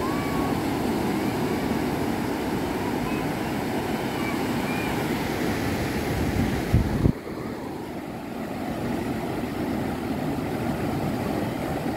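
Small waves breaking and washing up a sandy beach, a steady rush with wind on the microphone. A little past halfway, two loud wind buffets hit the microphone, and the sound is duller after them.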